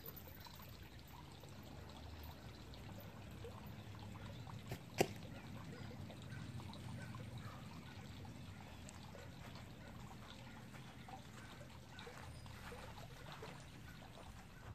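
Faint, steady outdoor background noise with a low rumble, broken by one short, sharp click about five seconds in.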